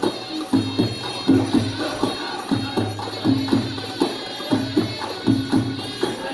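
Dance music driven by a steady, repeating drum pattern.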